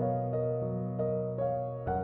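Soft instrumental background music: a slow melody of single notes, one every third of a second or so, over a held low chord.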